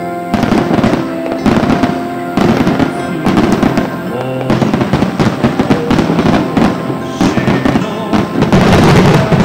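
Starmine fireworks: a rapid volley of aerial shell bursts, many bangs and crackles in quick succession, starting about a third of a second in and loudest near the end. Music plays underneath.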